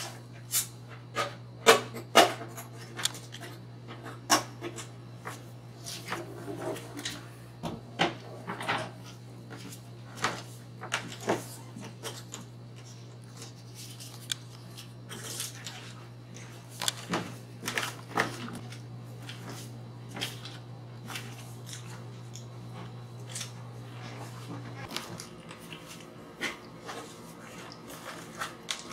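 Scattered clicks and knocks of things being handled and moved at a nightstand, irregular and sharpest in the first few seconds, over a steady low hum that cuts off about 25 seconds in.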